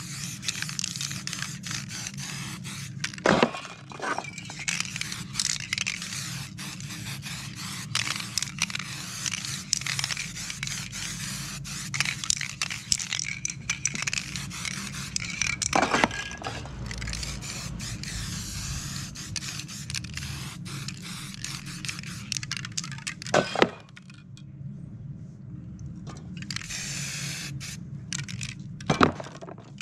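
Aerosol spray paint cans hissing in stop-start bursts, with four sharp knocks in between and a short break in the spraying near the end.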